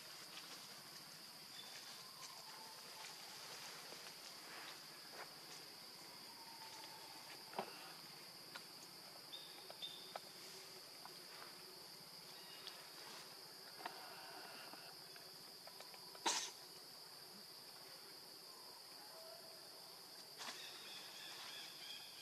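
Faint, steady high-pitched insect drone, with scattered faint clicks and a few short faint chirps; one sharper click about sixteen seconds in.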